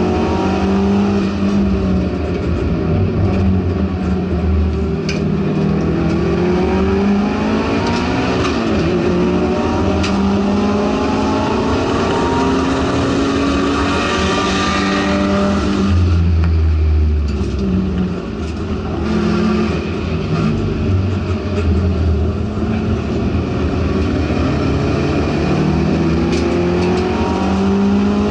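Subaru STI race car's turbocharged flat-four engine heard from inside the car, pulling hard through the gears with the revs rising again and again. About two-thirds of the way through it briefly drops off as the driver lifts and brakes, then it pulls up through the revs again.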